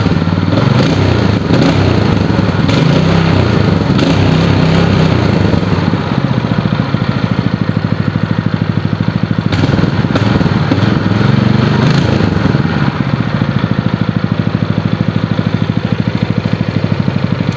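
Lifan 8 hp KP230 single-cylinder four-stroke engine running steadily, with an even, rapid exhaust beat.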